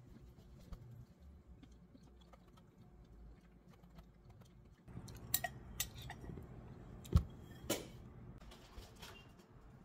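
A spoon clinking and scraping against a glass jug during eating, with a few sharp clinks in the second half, over a low steady room hum.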